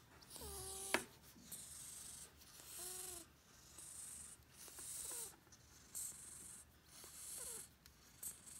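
Faint, short cat mews, four of them a second or two apart, over the repeated swish of a grooming brush drawn through the cat's fur about once a second. A sharp click sounds about a second in.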